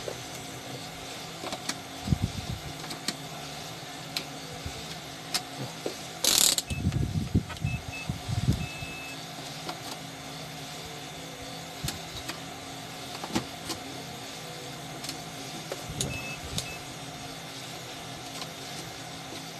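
Multimeter probes being handled and tapped against an inverter's output terminals in a check for a shorted output: scattered clicks and knocks, busiest with a loud scrape about six seconds in. A few faint short high beeps, typical of the meter's continuity buzzer, come around eight seconds in and again near sixteen, over a steady low hum.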